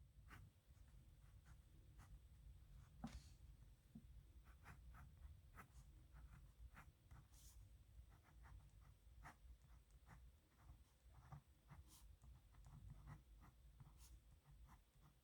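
Pen scratching on paper in many short, irregular strokes, faint, over a low hum.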